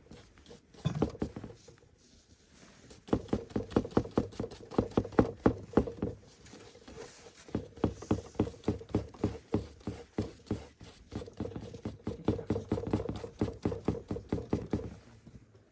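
Knife chopping on a wooden cutting board: quick, even strokes several a second, in runs broken by short pauses.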